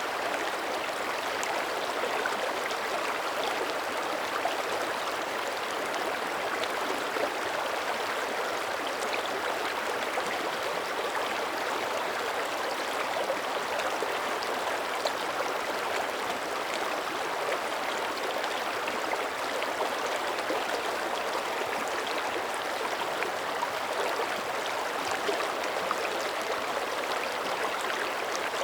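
Mountain creek running and burbling steadily over rocks, with a constant rush and fine trickling splashes.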